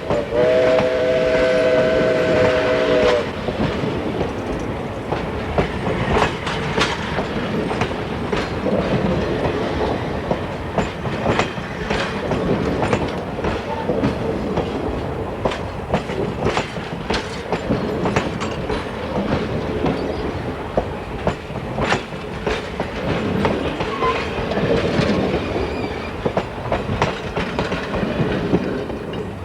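Steam whistle on Oregon Pacific & Eastern No. 19, a Baldwin 2-8-2 steam locomotive, blowing a chord of several tones that cuts off about three seconds in. Then the locomotive and its passenger train roll by, wheels clicking and clacking over the rail joints.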